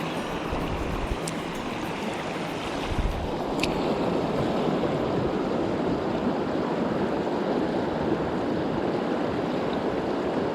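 Mountain stream rushing steadily over rocks, with a couple of faint clicks.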